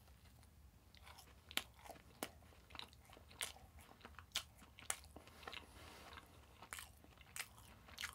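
Faint close-up chewing of a bite of soft vegan cinnamon-roll doughnut: irregular wet mouth clicks and smacks, a little more than one a second.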